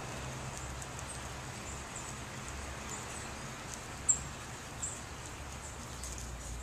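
Short, high chirps from small finches (American goldfinches and pine siskins) at a thistle feeder, scattered through, with the loudest about four seconds in. Under them runs a steady low hiss.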